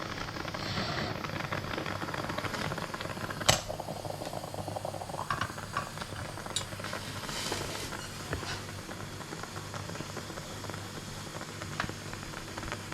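Moka pot bubbling and sputtering as brewed coffee flows up out of its spout, over the steady hiss of a gas flame. A sharp click about three and a half seconds in, after which the hiss fades: the flame is turned off.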